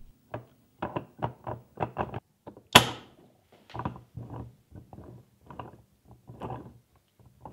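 Series 3 Land Rover gearbox gear train handled on the bench: the third/fourth synchro unit is slid along the main shaft to select third gear, giving a run of short metallic clicks and knocks with one sharp clack about three seconds in. The gears then tick and clunk as the shafts are turned by hand.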